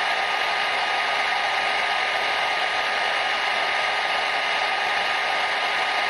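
Hair dryer running steadily: an even, unbroken blowing hiss with a faint steady whine running through it.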